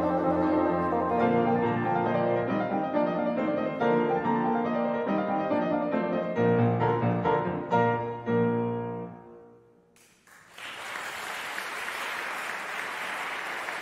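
Bassoon and piano playing the closing bars of a piece, the final notes dying away about nine seconds in. About a second later an audience starts applauding, steady to the end.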